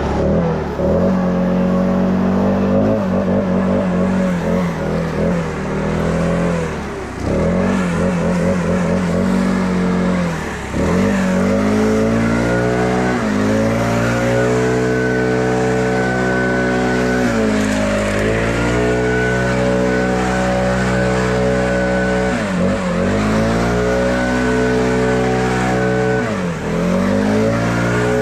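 An engine running steadily at high speed, its pitch dipping briefly about six times as it is loaded and picks back up. A faint high whine sits over it for several seconds in the middle.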